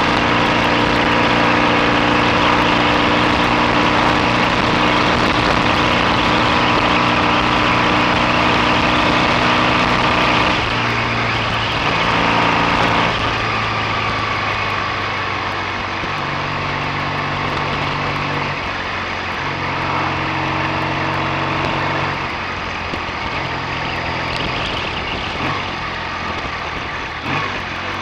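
BSA A65 650 parallel-twin motorcycle engine running under way, with wind and road noise. The engine holds a steady note for about ten seconds, then drops, and runs on at lower, changing revs.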